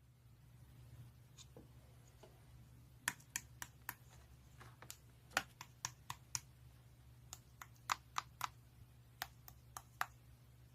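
Irregular sharp clicks, about twenty of them starting some three seconds in, a few a second like keys or taps, over a faint steady low hum.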